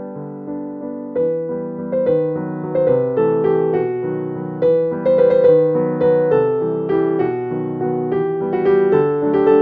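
Background music: a gentle piano tune with chords and a melody, its notes growing louder and fuller after about a second.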